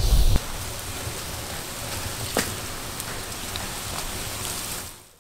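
Large pot of water boiling hard on an outdoor stove: a steady hissing bubble, with a low rumble in the first half-second and a couple of faint clicks, fading out near the end.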